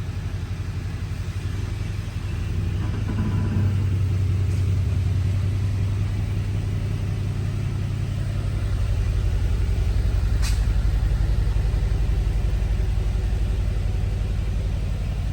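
Mercedes-AMG C63 S's twin-turbo V8 idling with a steady, deep rumble that gets louder about two seconds in. A single sharp click sounds about ten seconds in.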